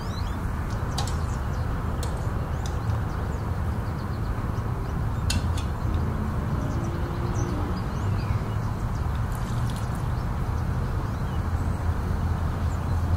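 Steady low background noise with a few scattered light metal clinks: a fork and spoon tapping the sides of a stainless steel pot while boiled potatoes are mashed.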